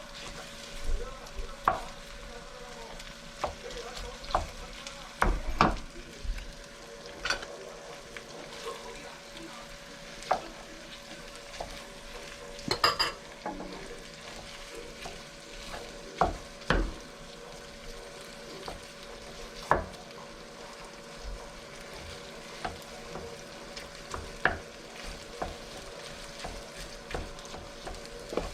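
Pork and egg fried rice being stir-fried in a hot pan: a steady sizzle with irregular knocks and scrapes of the spatula against the pan every second or two, over a faint steady hum.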